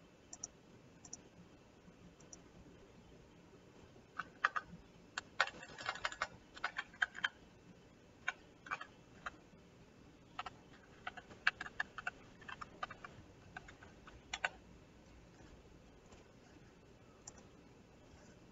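A few single mouse clicks, then computer keyboard typing in bursts from about four seconds in to about fourteen seconds, and one more click near the end.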